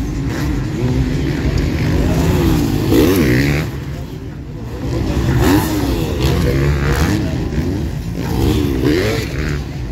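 Several motocross bikes racing on the track, their engines revving up and down in quick swoops as the riders work the throttle through the gears, with the sound easing off briefly about four seconds in before rising again.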